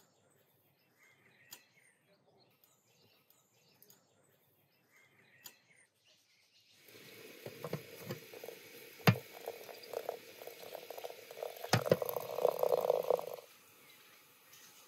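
Water sloshing and splashing in a glass teapot of dried flower tea, with a metal spoon stirring and clinking sharply against the glass twice; it starts about seven seconds in and stops shortly before the end. Before it, faint birdsong.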